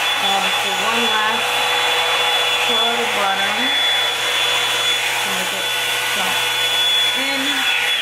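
Revlon One-Step hair dryer and volumizer running steadily: a rushing blast of air with a thin high whine from the motor, cutting off abruptly at the very end as it is switched off.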